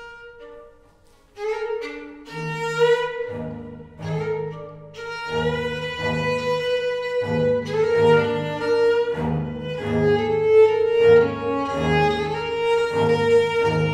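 Violin and viola da gamba playing together. It opens softly on a held note; from about two seconds in, the gamba comes in with repeated low bowed notes under the violin's line, and the playing grows louder.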